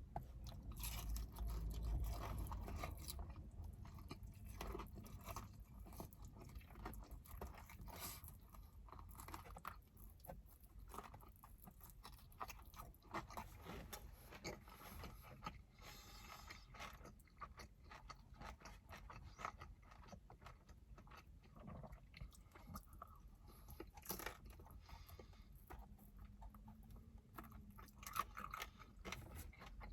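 Quiet chewing and biting of sticky fried chicken wings, with crunching and many small irregular clicks throughout.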